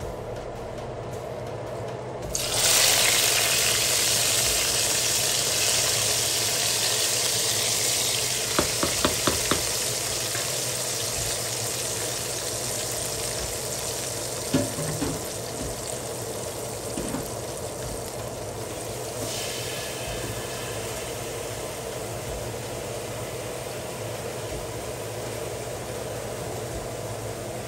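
Hot tadka oil with cumin seeds and dried red chillies poured into simmering yogurt-and-gram-flour kadhi: a sudden loud sizzle about two seconds in that slowly dies down. A quick run of clicks comes about nine seconds in.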